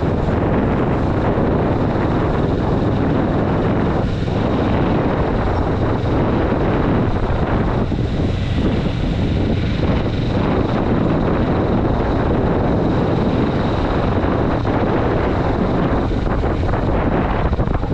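Kawasaki Vulcan S parallel-twin engine running steadily while the motorcycle is ridden along at road speed, mixed with heavy wind rush on the microphone.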